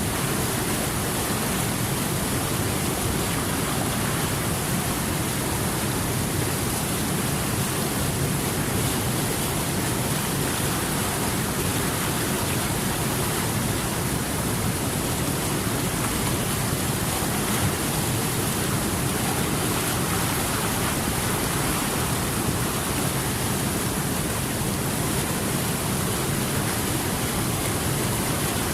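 Steady, even rush of flowing water, unchanging throughout with no distinct splashes or drops.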